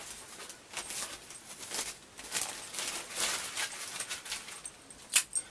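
Adhesive tape being pulled off the roll, with irregular high-pitched crackling, then a single sharp snap just after five seconds in.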